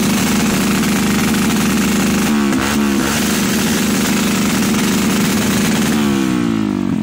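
Dirt bike engine revved and held at high revs, dipping briefly about two and a half seconds in, then the revs falling away near the end.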